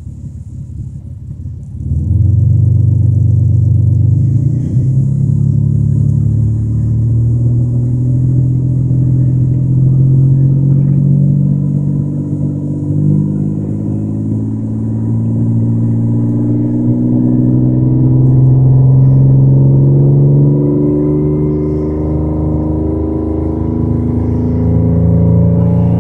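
Toyota Camry engine revved up from idle with an exhaust leak, jumping in level about two seconds in and held at high revs, the pitch shifting up and down. The exhaust leak is heard as extra exhaust noise over the engine.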